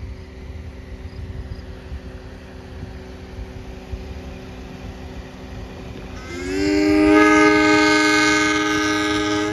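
Air horn of a Chicago North Shore Line interurban car sounding about six seconds in. It is a two-tone chord that slides up briefly as it comes on, then is held steady for about three seconds.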